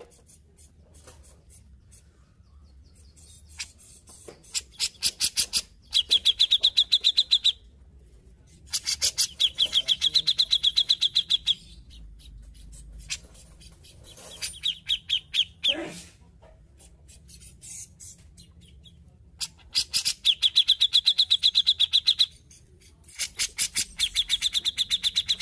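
Cucak jenggot (grey-cheeked bulbul) singing in loud, rapid phrases of sharp repeated notes, each phrase lasting two to four seconds, five times with short pauses between.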